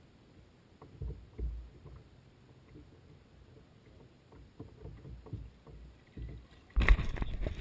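Small boat on the water: faint knocks and water movement against the hull, then a sudden louder rush of noise near the end.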